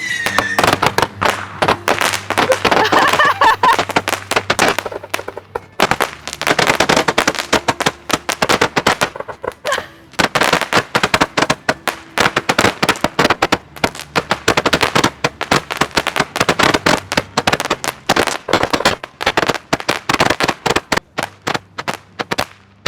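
Fireworks going off: a fast, dense run of sharp cracks and pops, several a second, with short lulls about six and ten seconds in, thinning out near the end.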